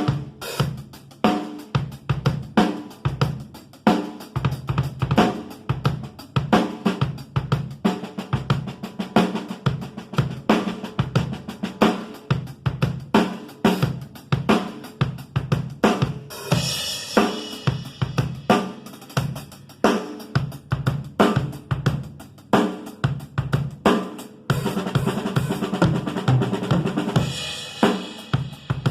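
Pearl Export EXL drum kit being played: a steady run of kick drum and snare strokes with hi-hat. Crash cymbals wash over the beat about halfway through and again near the end.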